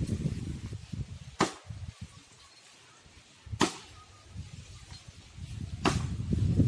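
Three sharp chopping blows on a date palm trunk, about two seconds apart, with low rumbling noise before the first and after the last.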